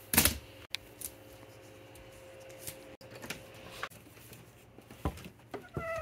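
Handling noise: a loud clatter as pruning shears are set down on a wicker basket, followed by scattered light clicks and knocks. A faint steady hum runs under the first few seconds, and a brief squeak comes near the end.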